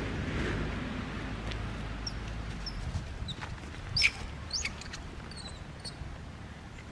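Small birds chirping: a few short, high chirps scattered through the middle, the loudest about four seconds in, over a steady low background rumble.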